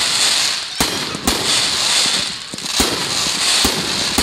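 A fireworks barrage firing shot after shot: stars bursting into a dense, continuous crackle, punctuated by several sharp bangs. The crackle thins briefly about halfway through.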